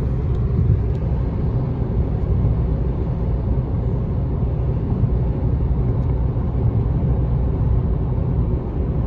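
Steady low rumble of road noise inside a car's cabin while it cruises at highway speed: tyres on the road surface and the car's running gear, even and unbroken.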